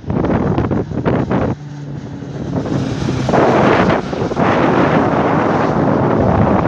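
Wind buffeting a phone microphone, with an aircraft's engine noise underneath that swells and grows loud from about three seconds in.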